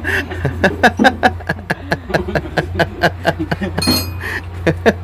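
Rapid, irregular sharp clicks and knocks, several a second, with a brief metallic ring about four seconds in, over a steady low hum.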